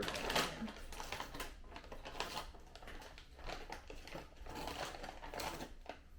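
Crinkling plastic-foil potato chip bag being handled, a run of irregular short crackles.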